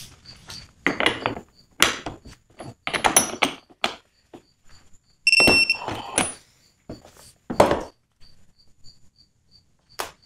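Metal clanks and knocks as a socket on a long-handled wrench with a digital torque meter is fitted to steel bolts in a fixture and turned. About five and a half seconds in, the torque meter gives a short high beep.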